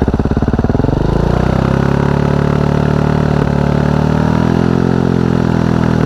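Husqvarna 701's single-cylinder four-stroke engine revved up from idle and held steady at about 5,000 rpm through a Wings exhaust with the baffle removed, then let fall back toward idle at the end. The test reads about 104 dB.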